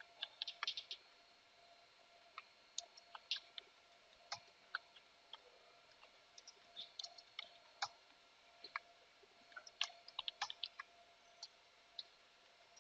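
Faint computer keyboard typing: scattered, irregular key clicks in short runs, with pauses between them.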